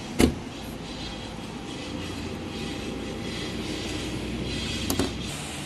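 Two sharp knocks, a loud one just after the start and a softer one near the end, over a steady low rumbling background noise.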